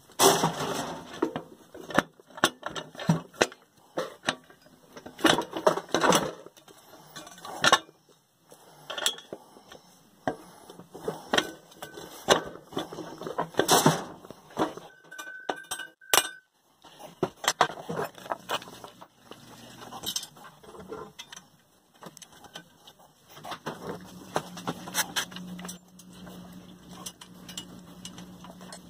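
Irregular metal clinks, clanks and knocks of tools and hardware being handled while a drill press extension is fitted. A low steady hum comes in near the end.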